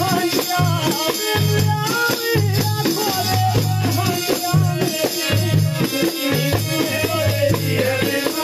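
Live Himachali folk dance music: a hand-played frame drum and a small two-headed drum beat a steady, even rhythm, with a rattling percussion sound and a wavering melody line over it.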